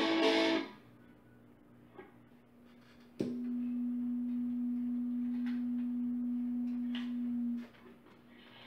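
A ukulele chord strummed through a homemade piezoelectric pickup and small amplifier, then about three seconds in a steady low feedback tone from the amp starts and holds for about four seconds before cutting off. The tone is an interference loop: the amp's speaker vibrating the piezo pickup.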